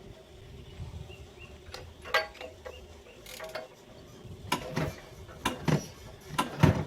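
Irregular mechanical clicks and clunks of hand work on a small gas golf cart engine, in uneven groups, the heaviest clunk near the end, over a faint low rumble in the first half.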